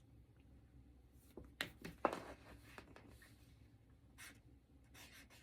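Alcohol marker tip drawn across heavy paper in faint, scratchy strokes as a word is lettered, with a couple of louder short scrapes about one and a half to two seconds in.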